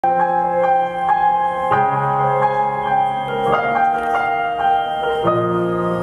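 Instrumental music led by piano, picking out a repeating pattern of notes about twice a second over held chords that change every couple of seconds.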